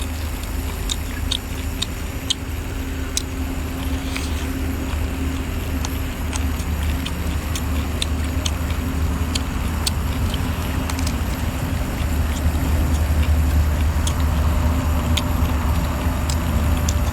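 A steady low rumble with a hum underneath. Over it come scattered faint clicks and wet mouth sounds of someone chewing chewy cuttlefish.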